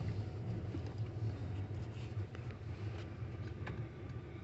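Car driving on a wet road, heard from inside the cabin: a steady low engine and tyre rumble with faint road hiss, and a few light clicks.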